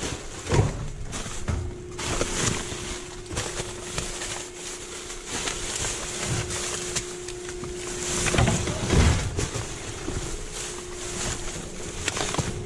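Plastic trash bags rustling and crinkling as gloved hands rummage through and shift them, with heavy thumps of bags being moved about half a second in and again around nine seconds. A steady low hum runs underneath.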